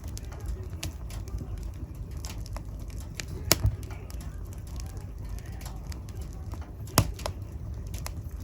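A fire crackling in a fireplace: a low steady rumble of flames with scattered small clicks and pops, and two sharp, louder pops, one about three and a half seconds in and one about seven seconds in.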